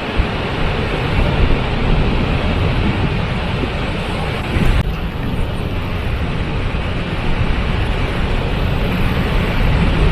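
Waterfall: a loud, steady rush of falling water, heaviest in the low end, with a slight shift in tone about halfway through.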